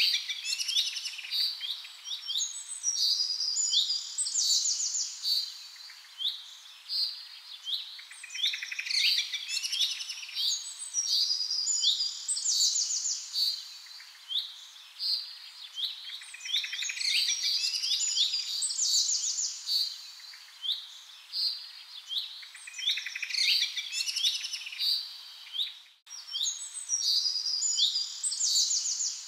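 Recorded birdsong used as a background track: rapid chirps and trills repeating in near-identical phrases about every eight seconds, with a brief dropout near the end.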